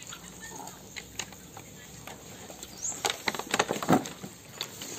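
Spoons and chopsticks clicking against bowls as people eat, scattered ticks with a denser flurry of clatter about three to four seconds in.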